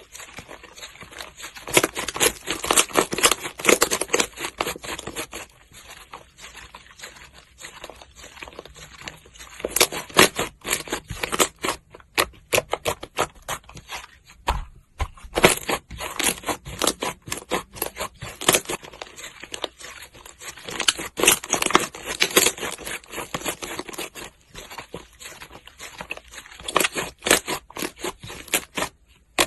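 Slime being squeezed, pressed and stretched by hand, giving bursts of dense crackling and clicking pops with short quieter pauses between them.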